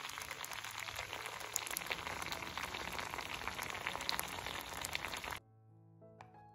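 Sliced carrots simmering in a frying pan of spiced water, a dense crackling and bubbling as the liquid boils down to a glaze; it cuts off suddenly about five seconds in. Soft piano music plays underneath.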